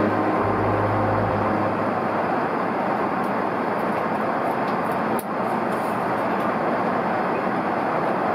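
Steady in-flight cabin noise of an airliner: an even rush of engines and airflow. Background music fades out in the first couple of seconds, and there is a faint click about five seconds in.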